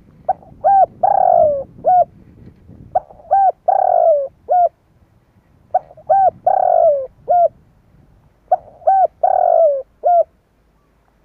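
Spotted dove (Streptopelia chinensis) cooing: four phrases, about three seconds apart, each made of a few short coos around one longer, falling coo.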